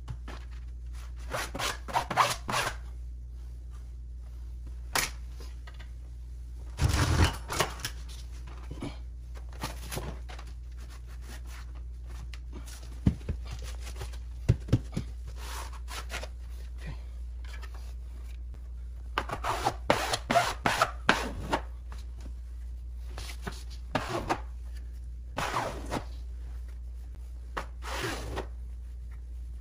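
A plastic wallpaper smoother and palms rubbing and scraping over abaca grasscloth wallpaper in short strokes, coming in clusters with pauses between, while wrinkles are worked out of a corner. A steady low hum runs underneath.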